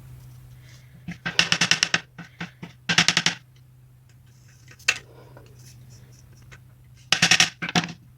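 Several short bursts of quick rattling clatter, as dishwasher racks or parts are handled, over a steady low hum.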